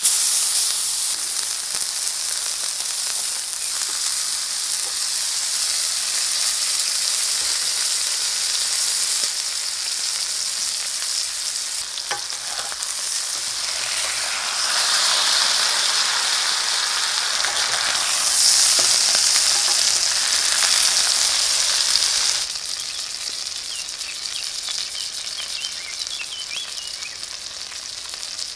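Beef steak searing in a cast-iron skillet, its fat sizzling steadily. The sizzle grows louder in the middle, then drops suddenly to a softer sizzle near the end.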